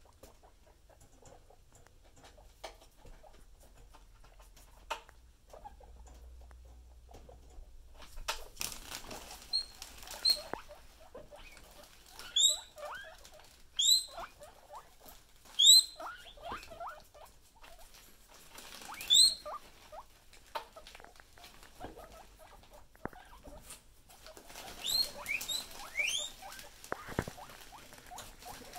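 Guinea pigs wheeking: loud, short, high-pitched squeals that rise in pitch. The squeals come singly about halfway through and in a quick cluster near the end. Wheeking is the guinea pig's excited begging call for food or water. Scattered light clicks at first give way, about a third of the way in, to rustling and pattering of the animals moving on fleece bedding.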